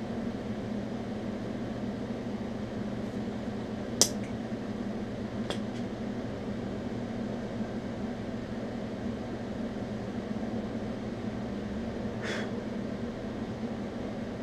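Steady electrical hum of a running welding machine and its cooling fan. A sharp click comes about four seconds in, a fainter one a second and a half later, and a short rattle near the end.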